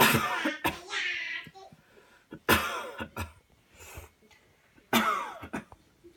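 A person giving deliberate, forced coughs on instruction: a series of strong coughing bursts about one to two and a half seconds apart, some with voice in them.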